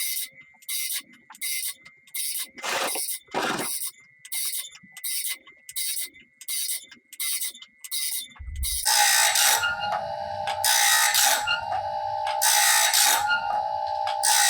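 Wood-Mizer BMS25 bandsaw blade sharpener running, grinding one tooth after another as the blade is stepped along: an even mechanical clatter of about two strokes a second over a steady high whine. About nine seconds in it changes to a louder, slower cycle of about one stroke a second over a lower steady hum.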